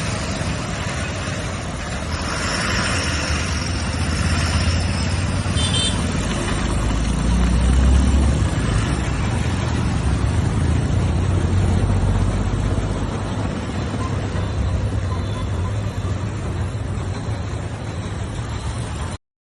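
Road traffic running past with a steady low rumble, swelling about eight seconds in, then cutting off abruptly near the end.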